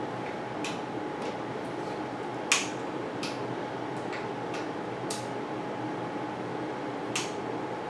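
Scattered light metallic clicks and ticks of hand tools working the bike's stem bolts, about eight of them at uneven spacing, the sharpest about two and a half seconds in. A steady fan-like hum runs underneath.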